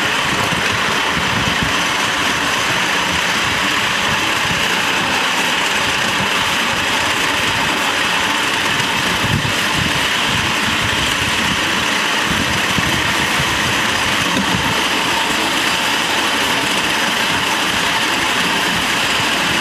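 Steady running noise of a ride on a 5-inch gauge miniature steam train: the wheels rolling along the track, with wind buffeting the microphone.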